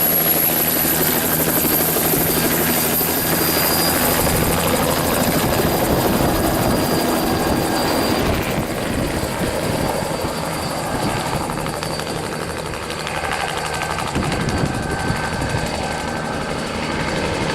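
Helicopter running steadily in flight, its rotor and engine sound continuous with a high whine that rises slightly over the first few seconds, easing a little after about eight seconds.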